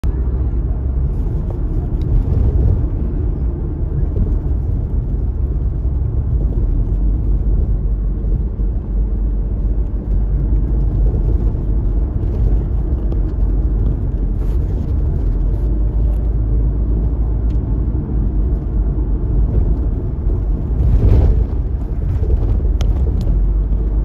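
Steady low rumble of road and engine noise inside a moving vehicle's cabin, with a brief louder rush of noise about three-quarters of the way through.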